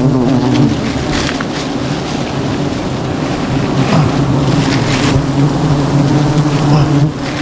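A mass of bees buzzing steadily close to the microphone, a low wavering drone, with a few brief rustles of handling on top.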